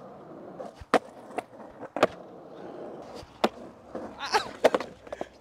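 Skateboard wheels rolling on rough concrete, broken by several sharp cracks of the board hitting the ground, about a second, two seconds and three and a half seconds in, and a quick clatter of hits near the end as it meets the concrete manual pad.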